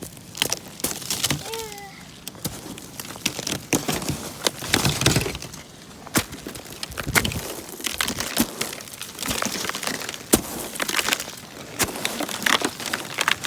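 Heavy snow with an ice crust from freezing rain being shovelled: a run of sharp cracks and crunches as the frozen crust breaks up. A brief falling squeak comes about one and a half seconds in.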